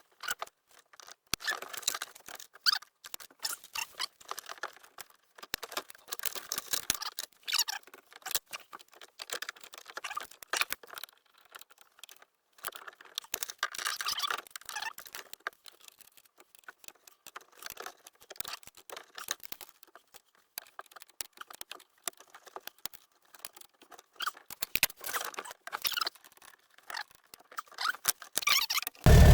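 Irregular small clicks, taps and rustles of hand work on truck dash parts and fittings, with short quiet gaps between. A loud steady running sound cuts in suddenly at the very end.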